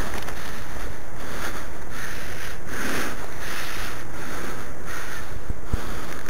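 Steady wind buffeting the camera microphone, with a couple of short, low knocks a little before the end.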